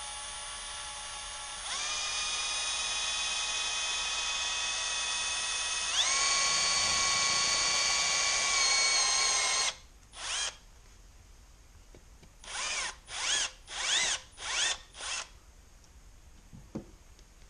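Power drill spinning a step bit, boring a hole through a Jeep grab handle. The motor whine runs steadily and steps up in speed twice, then stops about ten seconds in. It is followed by about six short trigger bursts, each spinning up briefly.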